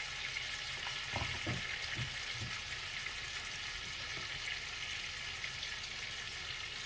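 Two beef steaks sizzling steadily in a frying pan, with a few soft knocks between about one and two and a half seconds in.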